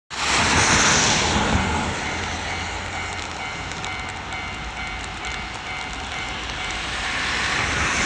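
Japanese railway level-crossing warning bell ringing in a steady repeating kan-kan while the barrier lowers, over a constant hiss of rain. The hiss swells louder in the first second or so.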